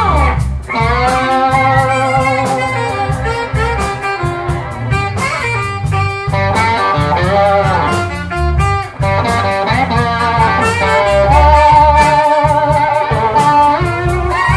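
Live blues band playing: a saxophone plays long, wavering held notes over electric guitar, keyboard and a steady drum beat.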